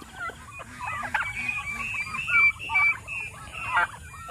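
Domestic turkeys and chickens calling together: many short, high chirps and peeps, with a run of low clucks in the first couple of seconds.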